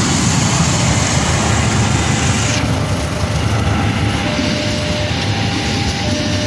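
Passenger train passing close at speed: a CC206 diesel-electric locomotive goes by, then its stainless-steel coaches roll past with a steady rumble of wheels on rail. The loud hiss eases sharply about two and a half seconds in, as the locomotive gives way to the coaches.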